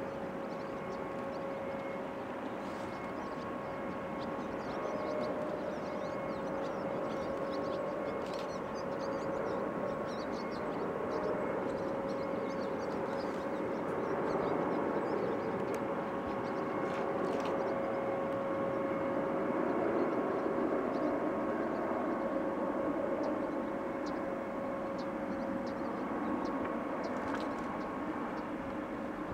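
Jet engines of an Air India twin-engine wide-body airliner landing: a steady rushing roar with a constant whine over it, growing a little louder midway as the jet comes down onto the runway and rolls out.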